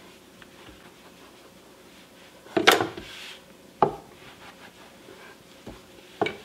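Plastic rolling pin rolling out dough on a wooden cutting board: a faint rubbing, with three sharp knocks of the pin against the board, the loudest a little over two and a half seconds in, another near four seconds and one just before the end.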